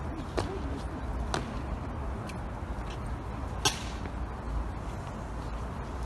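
Sharp hard clicks like heels striking stone, about one a second for the first couple of strikes, then a single louder strike about three and a half seconds in, over a steady low rumble of wind and outdoor background.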